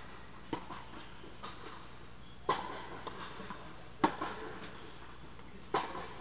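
Tennis rally on an indoor court: a ball struck by rackets and bouncing, four sharp pops about a second and a half apart with fainter ticks between them. Each pop echoes under the inflated dome of the hall.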